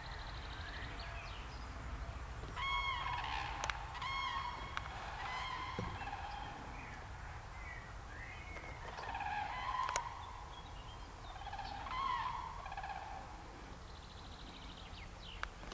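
Common crane calls: loud, honking trumpeting notes. A strong pair comes about three and four seconds in, and more calls follow, some overlapping, through the middle stretch.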